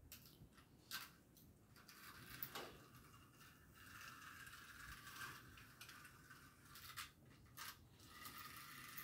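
Faint clicking and rattling of a small toy car moving along a segmented flexible plastic track, with a few sharper clicks scattered through.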